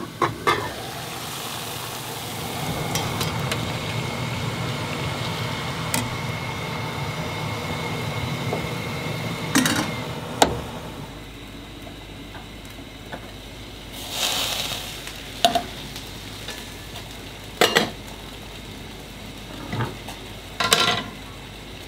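Water bubbling steadily in a white enamel pot, with a clink of the pot's lid near the start. After about ten seconds the bubbling gives way to quieter moments and several sharp clinks of metal cookware at a gas stove.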